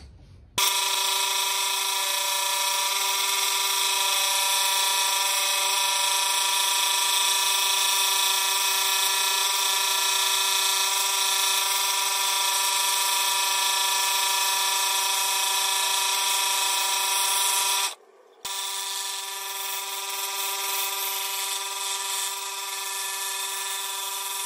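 Electric scroll saw running at steady speed while its blade cuts a thin wooden board: a loud, even buzzing hum. It breaks off for about half a second some 18 seconds in, then carries on slightly quieter.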